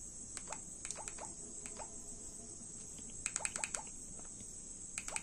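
Keypad buttons of a feature phone clicking as a text message is typed by multi-tap: single presses at first, then a quick run of about seven presses a little after three seconds in. A steady high-pitched whine sits underneath.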